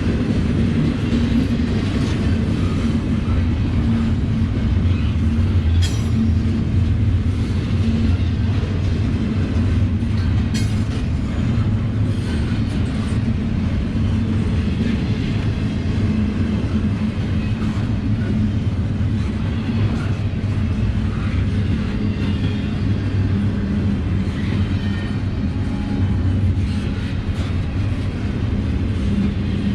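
Intermodal freight train rolling past close by: a steady rumble of cars on the rails with a few sharp clicks from the wheels.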